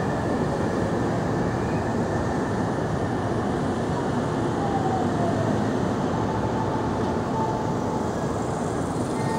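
JR Central 313 series and 211 series electric train standing at the platform, giving a steady even running noise from its on-board equipment.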